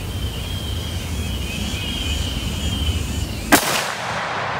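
A single rifle shot from a .458 SOCOM AR-15, a sharp crack about three and a half seconds in, followed by a rolling echo that fades away.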